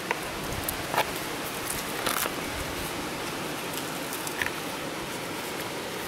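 A few short, light clicks and clinks of metal skewers and tableware being handled, over a steady rushing background noise.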